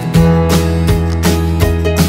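Background music: guitar-led tune with a steady bass and a regular beat.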